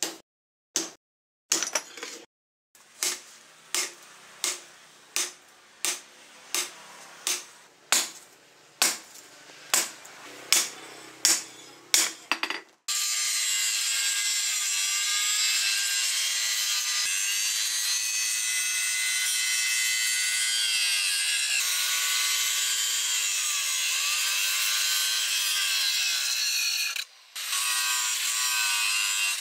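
Hand hammer striking red-hot leaf-spring steel on a post anvil, a steady run of ringing blows about one every two-thirds of a second. Then, about 13 seconds in, an angle grinder grinds the steel blade, a loud steady grinding with a wavering whine that breaks off briefly near the end.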